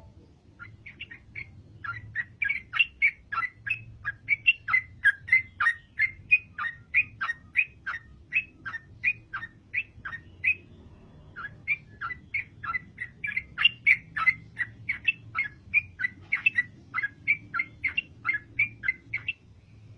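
Yellow-vented bulbul (trucukan) in full, persistent song: a long run of short, quick notes, about three a second, with a brief pause about halfway through.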